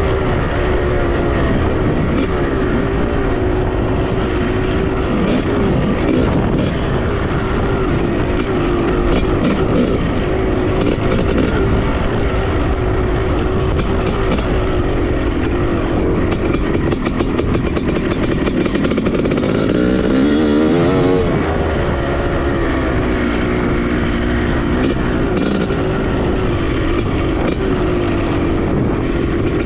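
Honda CR500 two-stroke single-cylinder engine revving under way on a dirt bike, its pitch rising and falling with the throttle, with a sharper rev about two-thirds of the way through.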